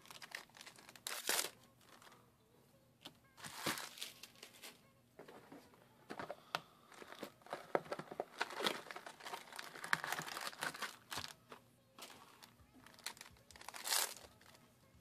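Foil Cardfight!! Vanguard Revival Collection booster packs crinkling as they are handled and torn open: irregular crackling throughout, busiest in the middle, with a few sharp rips, about a second in, around four seconds and near the end.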